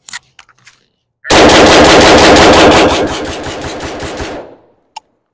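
AK-pattern rifle in 7.62x39 firing a fast string of about seventeen shots in two seconds, roughly eight a second. The sound dies away over about a second after the last shot.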